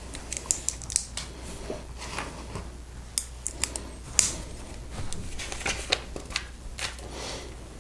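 Plastic LEGO bricks being handled and snapped together: irregular sharp clicks, the loudest about four seconds in.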